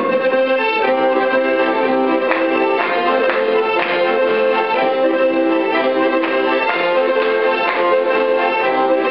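Accordion playing a lively traditional folk dance tune, sustained chords with a steady beat about twice a second.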